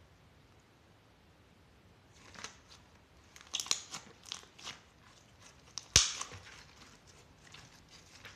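Slime being squeezed and worked by hand, giving a run of crackly clicks and pops from about two seconds in, with one sharp, loud pop a little past the middle.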